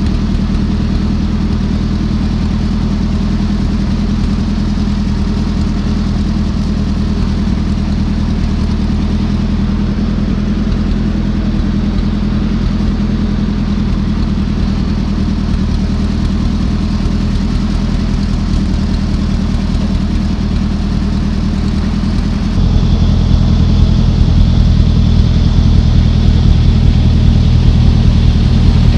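Ford 8N tractor's four-cylinder flathead petrol engine running steadily under way, on a newly fitted replacement carburetor. The sound gets louder about three-quarters of the way through.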